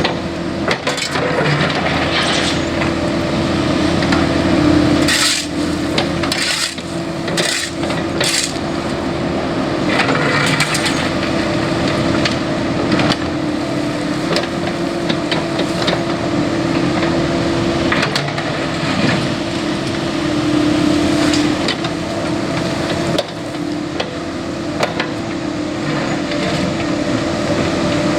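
CAT 308E mini excavator working, its engine and hydraulics running with a steady hum, while the bucket digs into the road. There is a burst of sharp knocks and cracks from about five to eight seconds in, with lighter clicks and scraping throughout.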